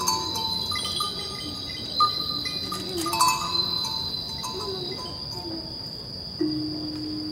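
Sparse, eerie soundtrack music: scattered short chime-like notes over a steady high-pitched tone, with a low held note coming in near the end.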